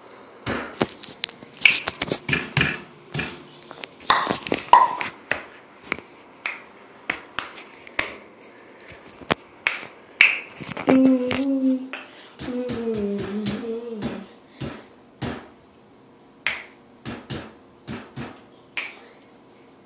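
Irregular series of sharp snaps and clicks, some in quick clusters, in a small room. A short wordless voice passage rises and falls about eleven to fourteen seconds in.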